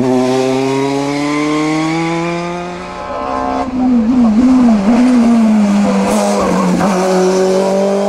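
Single-seater race car engine revving hard under acceleration. Its pitch climbs steadily, breaks off about three seconds in, wavers up and down for a second or so, then climbs again.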